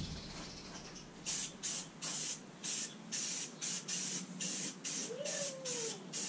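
Aerosol can of Rust-Oleum primer spraying in short repeated hisses, about two a second, starting about a second in.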